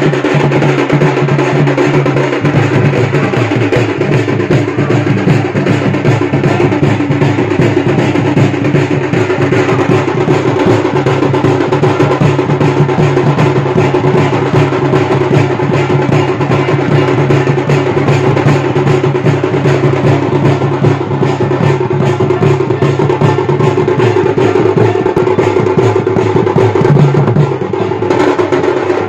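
Music of fast, dense drumming over a steady droning tone, loud and unbroken.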